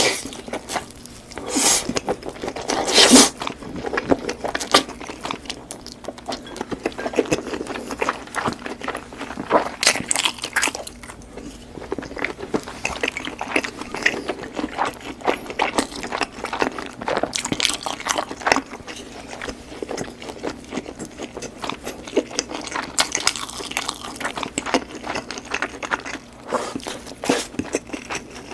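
Close-up crunching and chewing of Cheetos cheese balls: a dense run of crisp crackles and bites, louder in the first few seconds.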